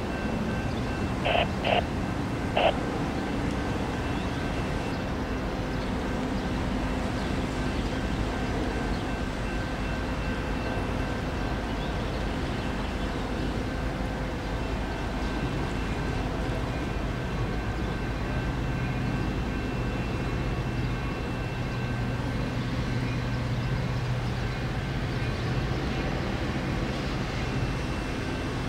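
Diesel push-pull commuter train running at a station: a steady engine drone with constant tones, the low engine note growing stronger in the second half as the train pulls out. Three short beeps sound in the first few seconds.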